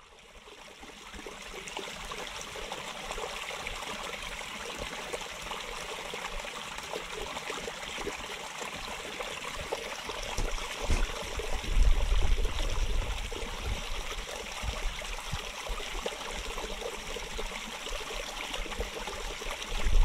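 Creek water trickling and splashing over a small rock cascade, a steady rush that fades in over the first couple of seconds. Some low rumbles come through about halfway through.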